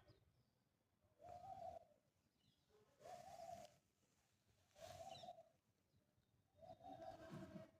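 A dove cooing, four faint repeated calls a little under two seconds apart.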